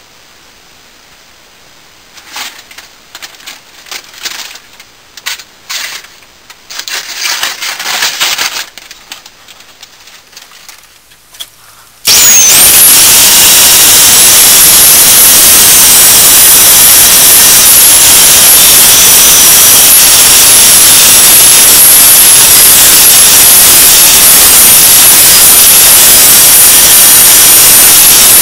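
Knocks and shuffling of handling for several seconds, then about twelve seconds in a bench belt sander switches on all at once and runs very loud and steady, with a high wavering whine above its hiss, as the blade is about to be sharpened.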